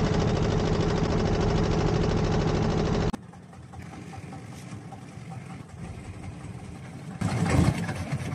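Fishing boat's engine running steadily under way, then cut off abruptly about three seconds in, leaving quieter harbour background. A brief louder noise comes near the end.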